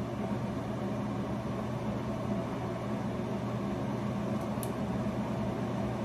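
Steady low hum with a light hiss, like a fan or ventilation running in a small room.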